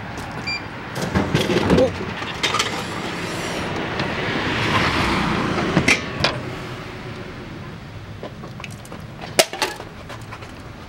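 Japanese drink vending machine: a short beep as two selection buttons are pressed together, then clunks, rattling and clicks as a drink drops into the tray and is taken out, with one sharp knock near the end.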